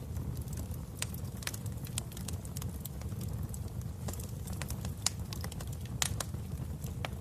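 Fireplace fire crackling: a steady low rumble of the flames with scattered sharp pops, a few louder ones about a second in, around five and six seconds, and near the end.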